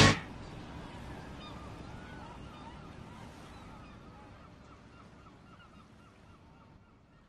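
Faint birds calling in short, repeated chirps over a steady hiss of surf, the whole slowly fading out.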